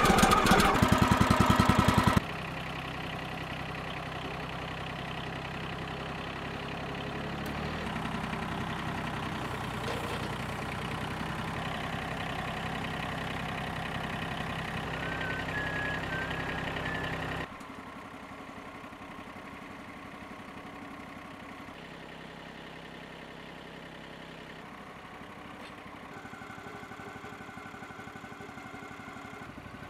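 A sawmill's key-started engine running loud and close just after starting, then, from about two seconds in, an engine running steadily at a lower level, dropping again about 17 seconds in.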